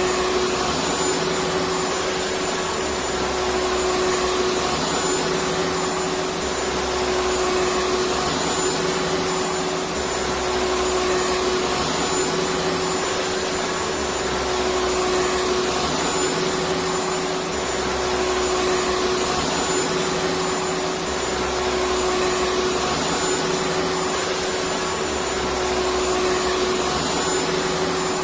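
Vacuum cleaner running steadily: a constant whooshing motor noise with a steady hum, and a low rumble that swells and fades about every two and a half seconds.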